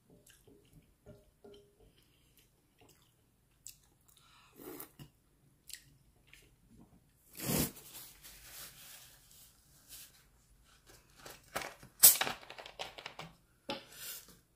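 Close-miked chewing and small mouth clicks of a mouthful of noodles, a brief rustle about halfway through, then sharp crackling of a plastic soda bottle being handled in the last few seconds.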